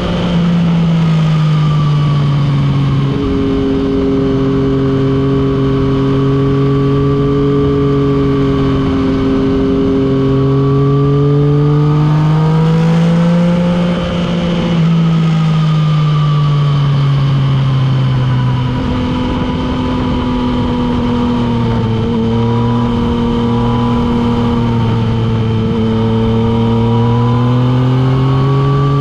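Motorcycle engine at speed under a steady rush of wind, recorded from the rider's position. The engine note holds steady, rises around ten seconds in, eases off briefly near the middle, drops lower later on and climbs again near the end.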